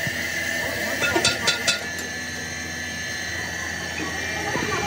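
Workshop machinery running with a steady hum and whine, with a quick run of about four sharp metallic clicks a little over a second in.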